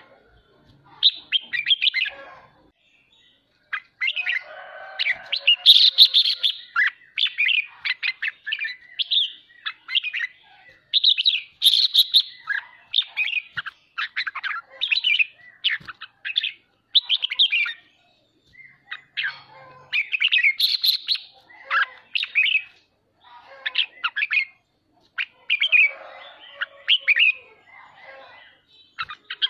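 Caged red-whiskered bulbul singing and chattering in short, quick phrases with brief pauses between them.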